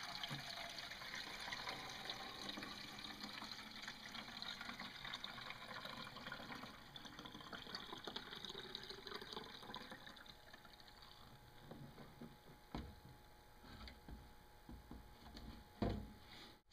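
Gasoline being poured into a snowblower's fuel tank: a steady trickling that thins out and fades after about ten seconds. A couple of faint knocks follow near the end.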